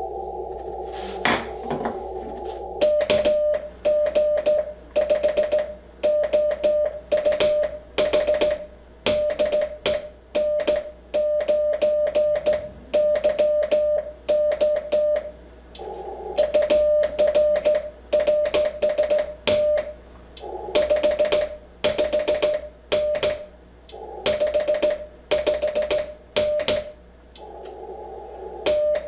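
Morse code (CW) received on an Icom IC-7300 transceiver: a single steady tone near 600 Hz keyed on and off in dots and dashes, with a click at each tone's edges. Receiver hiss fills the first few seconds, and short stretches of hiss come back between some of the letters.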